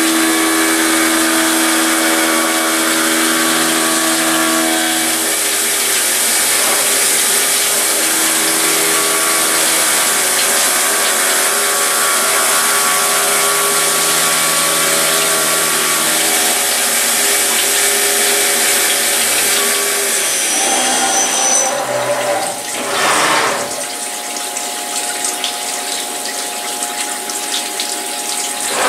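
CNC milling machine cutting aluminium angle under flood coolant: the spindle and stepper-driven axes run with steady whining tones that shift in pitch as the cutter moves, over the hiss of the cut. About two-thirds of the way through, the cutting stops and the coolant spray and splashing carry on, with a brief rush as the machine makes its last move.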